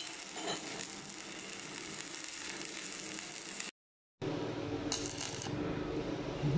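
Stick welding arc crackling and hissing. It cuts off abruptly at an edit about four seconds in, followed by a steady low hum, with the electrode struck into an arc again near the end.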